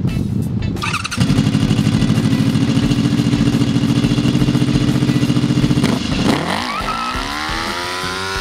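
Motorcycle engine of a homemade go-kart revving hard and held at high revs for about five seconds. It drops away about six seconds in and then climbs again to a steady pitch. The kart is doing a one-wheel peel to test the re-welded left drive hub.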